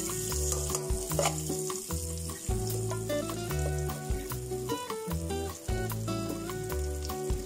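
Butter melting and sizzling in hot cooking oil in a pot, stirred with a metal ladle. Background music with a bass line plays along.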